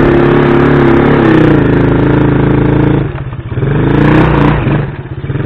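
Small motorcycle engine under way: running at steady high revs, easing off about three seconds in, revving up briefly a second later, then dropping back to a low, pulsing near-idle near the end.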